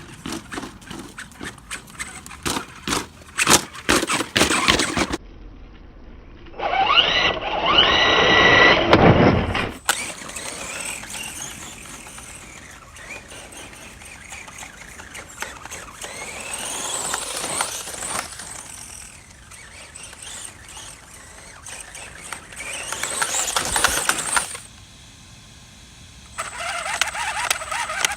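Traxxas Summit RC truck running: its electric motor and gears whine, rising in pitch as it speeds up, with a string of sharp knocks in the first five seconds.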